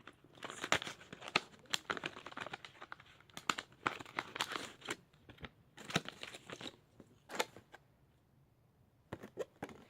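Packaging being opened by hand: crinkling and tearing in several spells of rapid crackles, with a short lull before a last few crinkles near the end.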